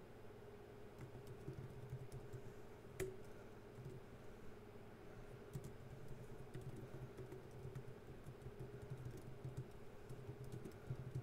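Typing on a computer keyboard: faint, irregular key clicks, with one sharper click about three seconds in, over a steady low hum.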